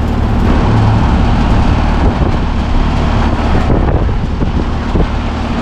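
Commercial air conditioner running: a steady low compressor hum under the rush of the condenser fan's air.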